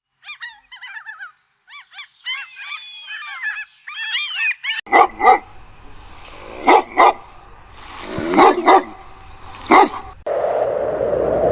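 High squeaky whimpering and yipping calls from a dog, then a dog barking in quick pairs, about four times. A steady rushing noise starts about a second before the end.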